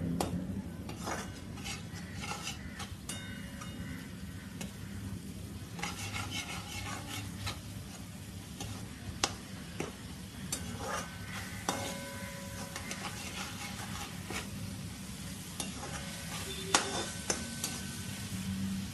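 Ground masala paste frying in oil with onions and tomatoes in a pan, sizzling softly while a spoon stirs it, with scattered sharp clicks of the spoon against the pan. The masala is being sautéed until its raw smell cooks off.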